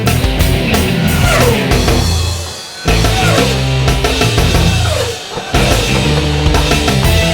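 Loud rock music with a drum kit and repeated falling pitch slides, briefly dropping away twice, about a third and two thirds of the way through.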